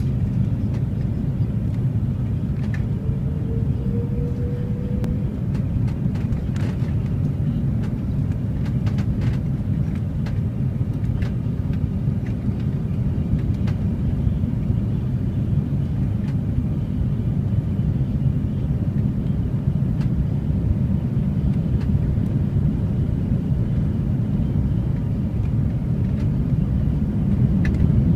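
Steady low rumble of engine and airflow noise inside an Airbus A330-300's cabin on descent, heard from a window seat over the wing. A faint rising whine comes in briefly about three seconds in.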